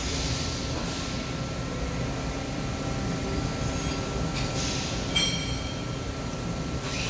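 TIG welding arc on stainless steel plate, a steady hiss and buzz with a faint constant whine, and a brief metallic clink about five seconds in.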